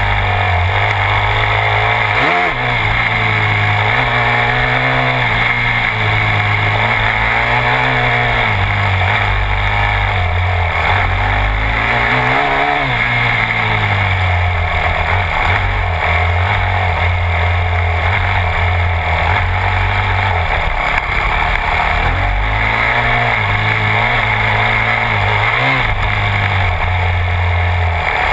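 Yamaha YZ250F dirt bike's 250cc four-stroke single-cylinder engine under way on a trail, its pitch rising and falling every few seconds as the throttle is opened and rolled off.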